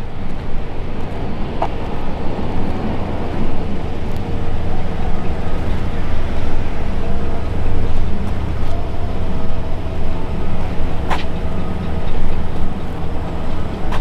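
Steady, loud low rumble of heavy machinery running, with a faint steady hum in it and two sharp clicks, one about a second and a half in and one late on.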